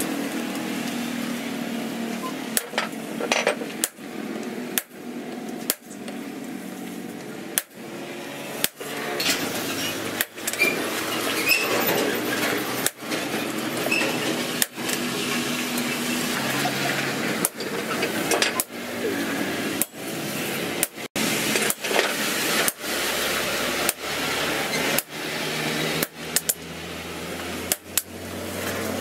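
Hammer blows on a red-hot steel axe-head blank lying on a steel post anvil: sharp strikes, irregular, roughly one a second, over a steady background hum.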